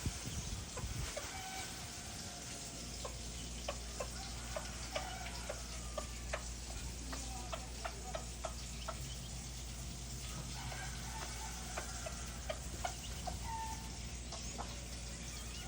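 Chickens clucking softly in short scattered notes, mixed with many quick sharp taps.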